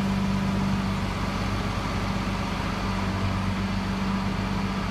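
Electric hoist of an overhead bridge crane humming steadily as it lowers a suspended machine on chains.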